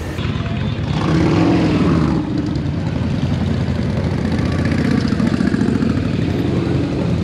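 Motorcycle engine running, louder from about one to two seconds in.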